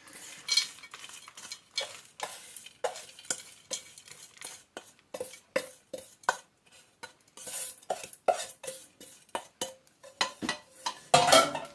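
A spoon scraping and clinking against a pan and dish in irregular short strokes as buttered biscuit crumbs are moved into the dish and pressed down for a cheesecake base.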